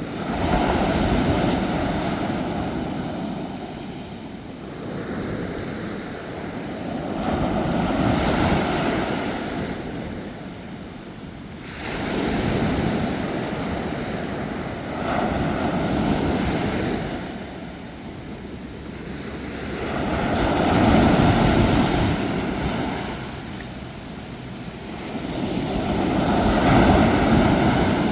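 Ocean waves breaking and washing in, rising and falling in about six surges spaced four to six seconds apart.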